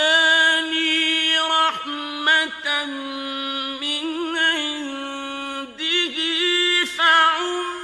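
A man chanting Qur'an recitation in a melodic tajweed style. He holds long notes and sways them in pitch, with a few short pauses between phrases.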